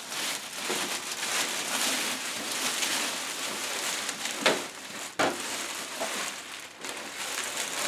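Clear plastic bag crinkling and rustling as it is worked down off a 3D printer, with a short sharp knock about five seconds in.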